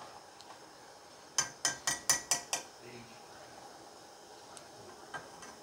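A metal utensil clinking sharply against a saucepan six times in quick succession, about five a second, then a faint knock or two near the end.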